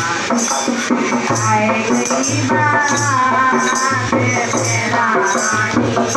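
Devotional bhajan singing at a puja, the melody carried by voices over a rattling shaker-type percussion beat.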